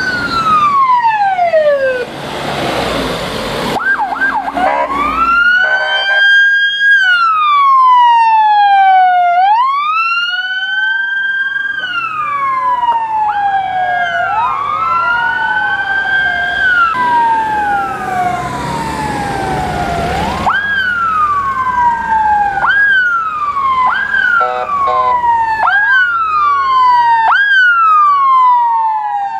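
Ambulance sirens wailing, the pitch rising and falling in slow sweeps. Near the end the sweeps come faster, about one every second and a half, and at times two sirens overlap.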